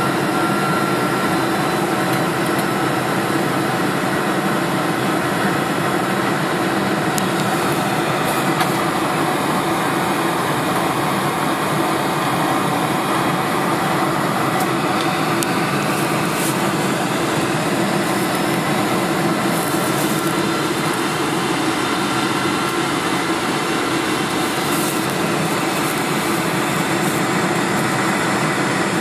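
Steady drone of a four-engined Boeing 747's jet engines and rushing airflow, heard inside the passenger cabin during the descent on approach to landing.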